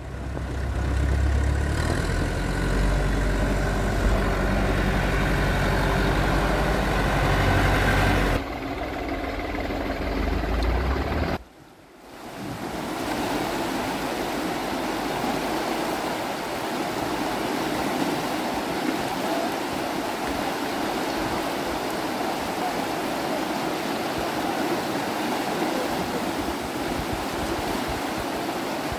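Tractor engine running, a low steady rumble for the first eight seconds or so. After a brief drop about eleven seconds in, floodwater rushes down a street in a steady, even rush of water.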